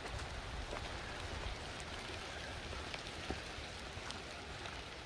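Light rain falling steadily, with scattered drop ticks.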